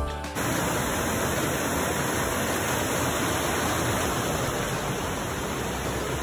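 Small mountain stream rushing over rocks and boulders: a steady rushing of water. It starts suddenly about half a second in, as background music cuts off.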